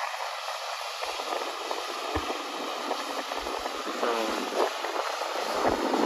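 John Deere STS combine harvesting soybeans close by: a steady, even running noise of the machine at work.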